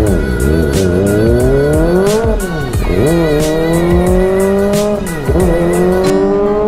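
Kawasaki ZX-25R's inline-four running through an aftermarket AR full-system exhaust as the bike accelerates in the low gears. The revs climb in a rising whine, drop at an upshift about two and a half seconds in, climb again, and drop at a second upshift into third a little past five seconds.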